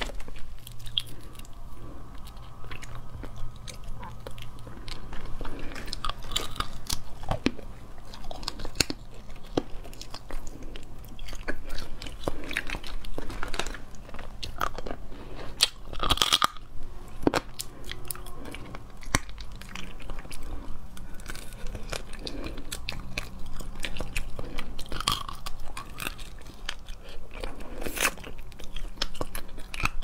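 Cooked crab-claw shells cracking between the teeth, with chewing of the claw meat: many irregular sharp cracks and crunches, a few louder ones standing out.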